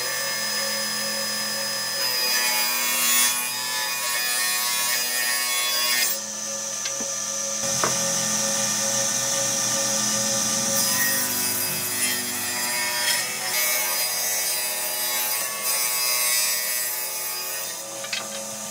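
Table saw running, its blade ripping thick wooden boards lengthwise, with the cutting noise changing as each board is pushed through. The sound changes abruptly a couple of times, about six and eight seconds in.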